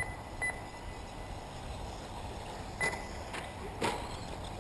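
Radio-controlled short-course race trucks running on the track under a steady background noise, with several short sharp knocks, a few of them carrying a brief high ping: at the start, half a second in, and near three and four seconds.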